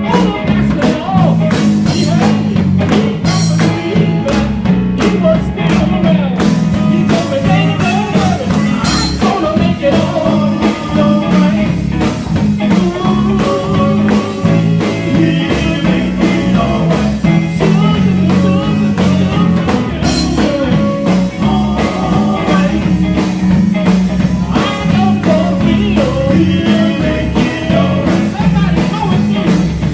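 Gospel group singing with a live band, guitar and drums keeping a steady beat under the voices.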